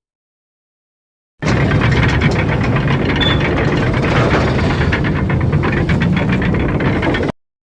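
Elevator running: a loud, steady mechanical rumble with fast rattling through it, starting abruptly about a second and a half in and cutting off just before the end.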